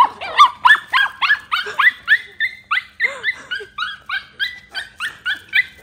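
Pomeranian whining and yelping in rapid, high-pitched cries, about four a second: excited calls while it waits for its owner to come to it.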